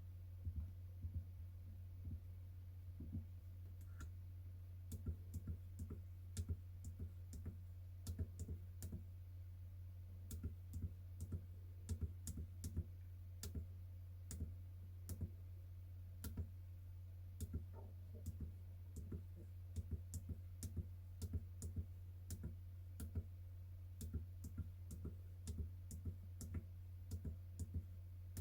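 Keys of a SwissMicros pocket calculator pressed one after another, each press a short sharp click, at an uneven pace of up to a few a second. A steady low hum runs underneath.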